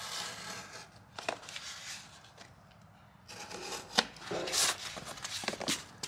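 Plastic A-pillar trim being pulled off a car's interior: irregular clicks and knocks with rustling handling between them.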